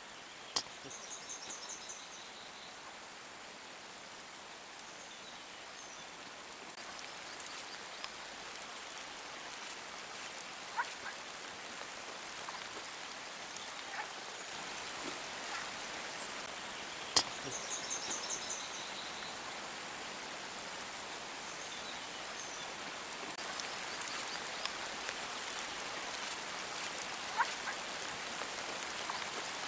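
Steady hiss of rain falling in forest, with a few sharp clicks, the loudest about a third of the way in. A short, high trill sounds twice, near the start and midway, over faint high insect-like pulsing.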